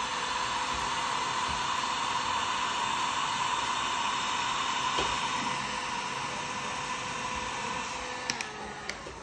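Drill Master electric heat gun running steadily, blowing hot air onto an adhesive GoPro mount to soften the adhesive pad and bond it to the helmet shell. Near the end there is a click, its fan note drops and it grows quieter.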